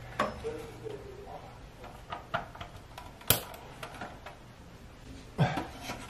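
Plastic clicks and knocks of cables and plugs being handled and pushed into the back of a broadband router, with one sharp click about halfway through and a cluster of knocks near the end.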